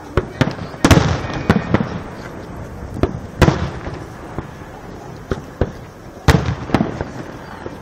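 Aerial fireworks shells bursting: a series of sharp bangs, some in quick pairs, each trailing off in an echo. The loudest burst comes about a second in, with further clusters of bangs around the middle and near the end.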